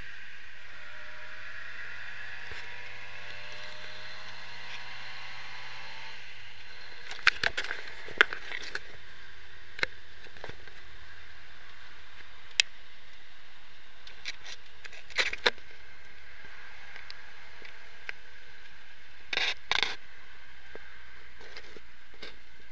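Triumph Herald 1200's small four-cylinder engine pulling with a slowly rising pitch under steady wind and road noise for the first six seconds, then fading into the steady noise. From about seven to twenty seconds a scatter of sharp knocks and scrapes sits over it.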